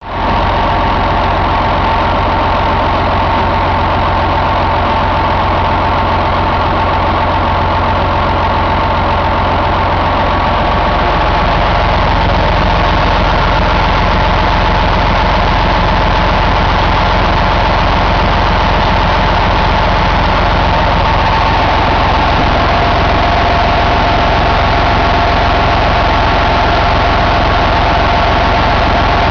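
Detroit Diesel Series 60 14.0-litre inline-six diesel engine idling steadily, slightly louder from about eleven seconds in.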